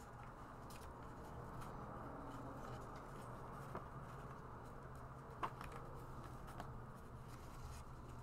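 Quiet rustling of paper refill sheets being worked onto the metal rings of a leather ring binder, with a few small clicks, the sharpest about five and a half seconds in, over a faint steady hum.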